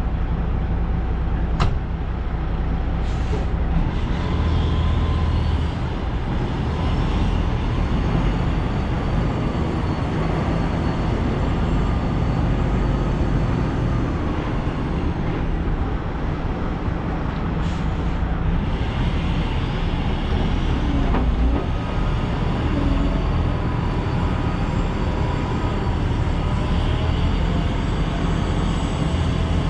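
Vehicle driving, its engine and road noise steady with slow rises and falls in engine pitch.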